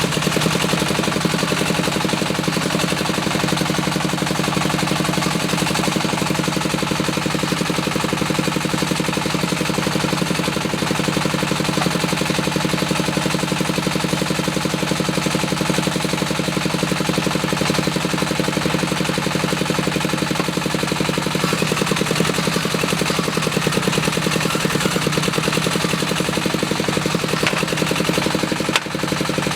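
Diesel engine of a small bore well drilling rig running steadily, a fast even chugging with no let-up. There is a brief dip and a click near the end.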